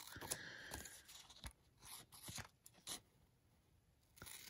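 Faint rustling of a paper sticker sheet being handled, with a few short, soft crunchy snips of scissors cutting out a sticker box.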